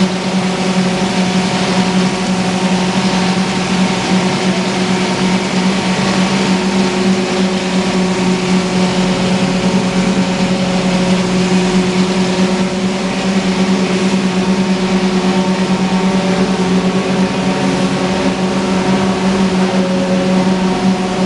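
Chilli powder grinding plant running: the pulverizer mill and its blower give a loud, steady drone with a strong low hum.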